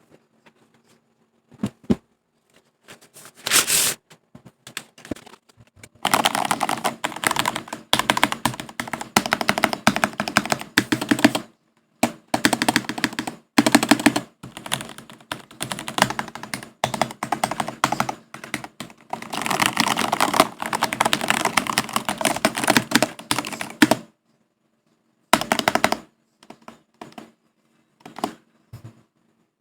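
Typing on a Monokei x Jujutsu Kaisen mechanical keyboard. A few scattered key presses lead into long runs of fast, continuous typing broken by short pauses. After a break, a last short burst and a few single keystrokes come near the end.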